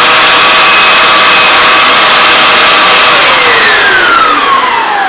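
Vax Dual Power Pro carpet washer running with its brush bar and SpinScrub brushes spinning freely while the machine is tilted back: a very noisy, steady whine. About three seconds in it is switched off and winds down, the pitch falling away.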